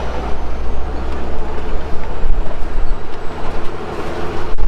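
Safari truck running as it drives along the reserve track, heard from aboard: a steady low rumble of engine and road noise.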